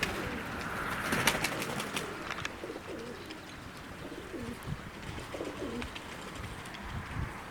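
Domestic pigeons cooing, low rolling calls repeated several times, with a cluster of sharp clicks about a second in.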